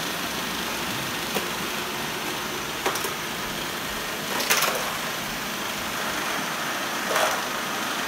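Several robot vacuum cleaners running together, a steady mechanical hum of their motors and brushes, with a few brief knocks.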